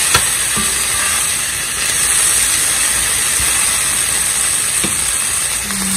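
Chopped shallots, ginger and tomato sizzling in a little oil in a stainless steel pan, a steady hiss, with a few light knocks of tongs against the pan.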